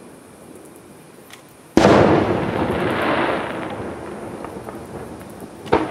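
Aerial firework shell bursting with a sudden loud boom about two seconds in, the sound rumbling on and fading over the next two seconds, then a second shorter bang near the end.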